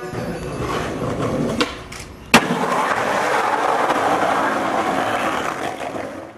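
Skateboard wheels rolling over rough stone paving, with a sharp clack of the board about two and a half seconds in and a smaller click shortly before it. The rolling noise fades out near the end.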